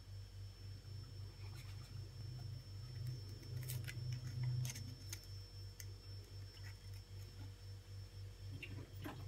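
Plastic baking soda shaker jar being handled, its lid twisted and flipped open with a few sharp clicks and rustling about three to five seconds in, over a steady low pulsing hum.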